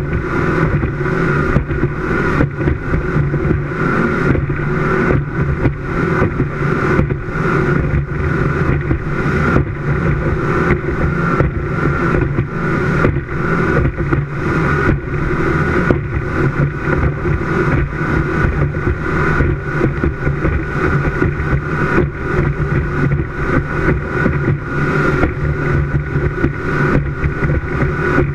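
Speedboat engine running at high, steady speed under way, with the rush of wind and water around the hull.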